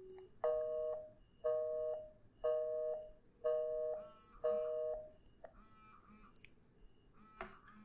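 Smartphone video call ringing on the calling side: five short ringing tones, about one a second, stopping after about five seconds as the call is cut, followed by a few faint clicks.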